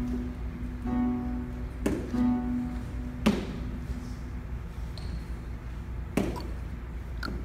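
A child plucking slow single notes on a nylon-string classical guitar, playing a C major scale: three notes ring in turn, the last fading out a little over three seconds in. A few sharp knocks follow, such as hands bumping the guitar.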